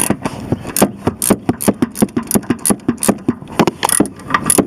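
Socket ratchet on an extension clicking rapidly, several clicks a second, as it tightens the bolt of a negative battery ground cable.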